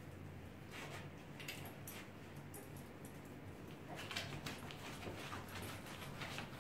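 Young puppies making small yips and squeaks in short scattered bursts, about a second in and again from about four seconds in, over a steady low hum.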